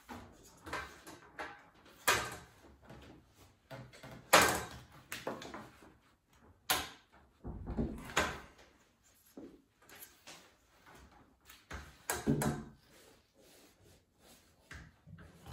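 Scattered knocks, clicks and scrapes of a click-fit pleated blind's frame rails being handled and pushed together on a wooden table, the loudest knock about four seconds in.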